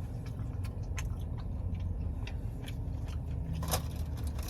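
Close-miked chewing of a soft fried cheese bite, with scattered wet mouth clicks and one sharper click about three and a half seconds in, over a steady low hum.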